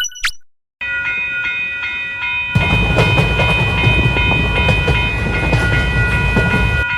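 Cartoon railway sound effect. The last clangs of a railroad crossing bell fade out, then a train's steady, many-pitched tone starts about a second in. About two and a half seconds in, the loud low rumble of the train running past joins it, and everything cuts off abruptly at the end.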